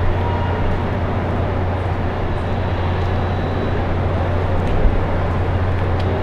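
Steady urban street background: a constant low hum under a broad, even rush of noise, typical of nearby traffic.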